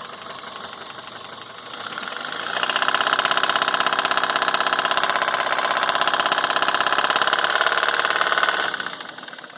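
2003 Toyota Corolla's 1.8-litre 1ZZ four-cylinder engine knocking at idle, then revved up about two seconds in, held there, and let fall back to idle near the end; the knock gets worse the harder it is revved. The knock comes from a rod bearing spun through oil starvation after the engine ran two quarts low on oil.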